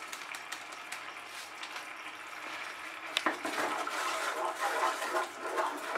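Thick sauce simmering and bubbling in a frying pan over a medium flame; a little after three seconds in, a knock and then a wooden spatula stirring and scraping through the sauce, the sound growing rougher and a little louder.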